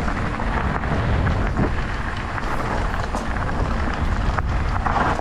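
Wind rushing over the camera microphone and a bike rattling over rough ground while riding: a steady rumbling noise with scattered knocks.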